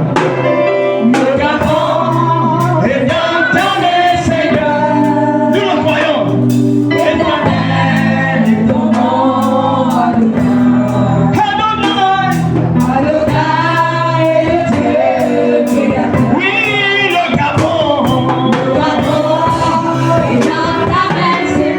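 Gospel song: voices singing over instrumental accompaniment with a steady beat.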